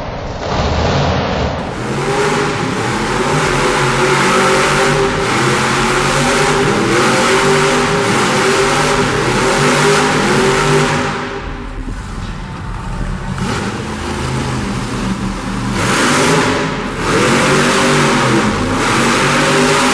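Radio-controlled monster truck's motor revving up and down over and over as the truck spins donuts, easing off for a couple of seconds past the middle before revving again.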